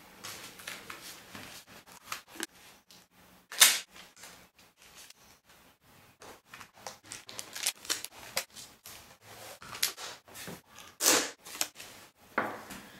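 Adhesive tape being pulled off its roll and pressed onto a pink foam wing: a run of short crackling clicks with several louder tape rips, the loudest about three and a half and eleven seconds in.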